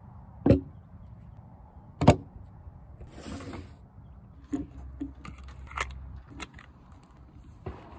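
.22 pump-action rifle: two sharp shots about a second and a half apart, then a short sliding rasp and a run of lighter metallic clicks as the action is worked.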